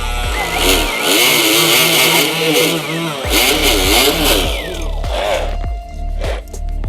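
Small two-stroke engine of an RC speed boat test-running and revving, its pitch wavering up and down. The loud revving dies back about four and a half seconds in.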